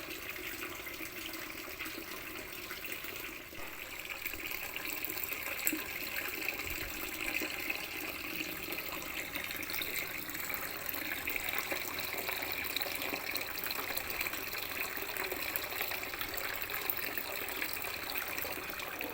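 Water running steadily from a tap, a continuous splashing hiss.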